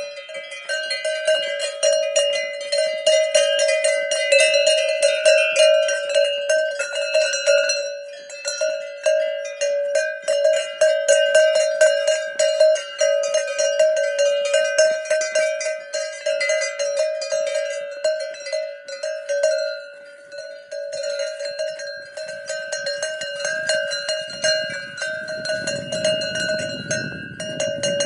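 Cowbell ringing without a break, clanging many times a second as the cow wearing it walks, over one strong steady ring. The strikes thin out somewhat in the second half, and a low rumble comes in near the end.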